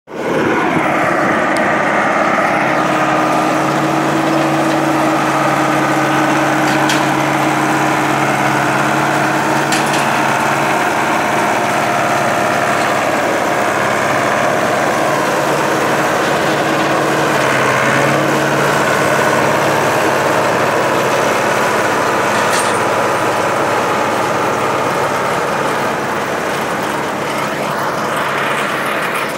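Renault farm tractor's diesel engine running steadily at a constant speed, with a few faint clicks over it.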